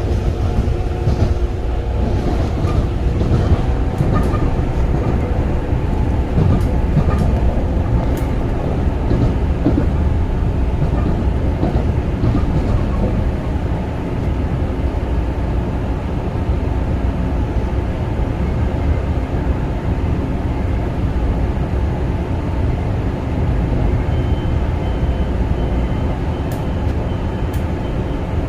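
Long Island Rail Road Kawasaki M9 electric railcar heard on board, running along the track with a steady low rumble and faint motor tones.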